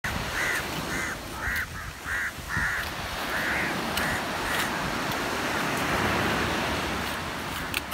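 Crows cawing over and over, about two caws a second, for the first half or so, over a steady background rush.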